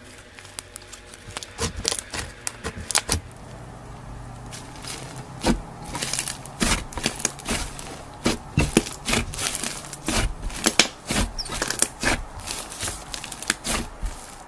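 Slime being squeezed and worked by hand, giving irregular sharp clicks and pops. They are sparse at first and come thick and fast from about five seconds in.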